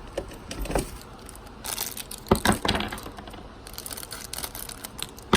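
Crinkly plastic blind bag being handled and cut open with scissors: rustling with a few sharp clicks and snips, busiest in the middle.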